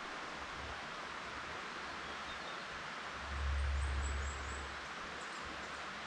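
Steady rushing hiss of forest ambience, with faint high bird chirps and a low rumble lasting about a second near the middle.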